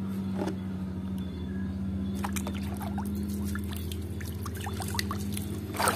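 Water sloshing and bubbling in a plastic tub as muddy toys are swished in it by hand, with gurgling bubbles from about two seconds in, over a steady low hum.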